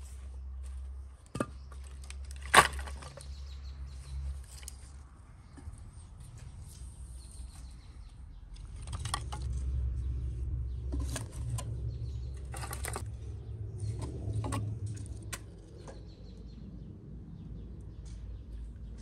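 Split firewood knocking and clattering as pieces are stacked into a rusty metal fire stove. The loudest is one sharp knock about two and a half seconds in, with a cluster of smaller knocks in the middle.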